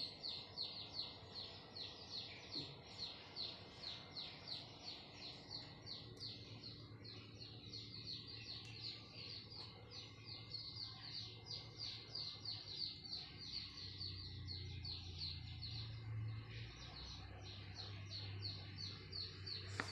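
A small bird chirping over and over, about three short, high, falling chirps a second, without pause.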